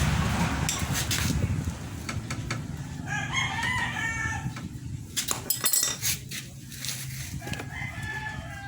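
A rooster crowing twice, each crow a drawn-out call. A few sharp metallic clinks come in the middle, over a steady low background hum.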